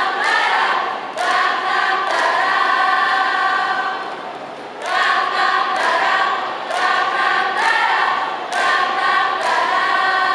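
Speech choir of young women's voices singing together in unison, a cappella, in held phrases about a second long, with a short break about four seconds in.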